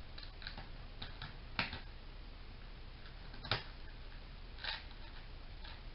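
Laptop keys being pressed: scattered light clicks and taps, three sharper ones at about one and a half, three and a half and nearly five seconds in, with fainter ticks between.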